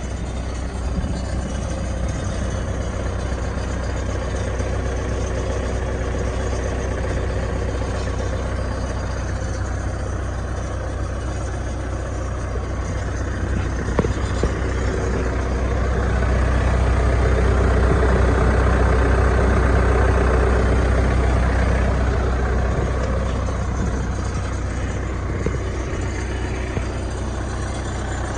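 New Holland 555E backhoe loader's diesel engine running steadily at idle. It swells louder for several seconds around the middle, then settles back to idle.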